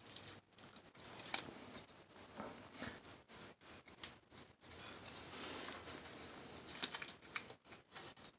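Light clicks, taps and scraping as a metal engine side cover is worked onto a Yamaha TW200 engine case. There is a sharper knock about a second in and a quick run of clicks near the end.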